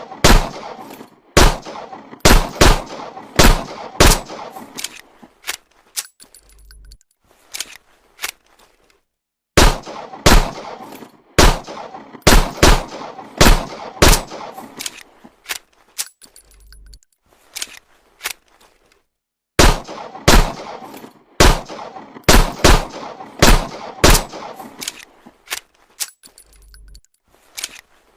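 Homemade M1911 pistol gunshot sound effect: strings of sharp shots with ringing tails, about nine shots over five seconds, each string followed by a few seconds of faint sounds and a brief low hum. The same string repeats about every ten seconds.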